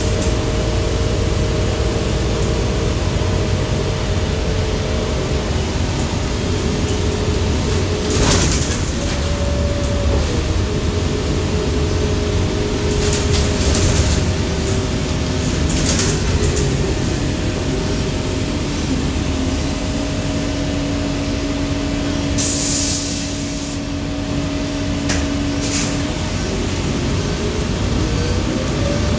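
A 2020 Gillig BRT 40-foot transit bus heard from inside while under way: steady engine and road rumble with a drivetrain whine whose pitch drifts down in the middle and climbs again near the end as the bus speeds up. A few short rattles and a brief hiss about two-thirds through.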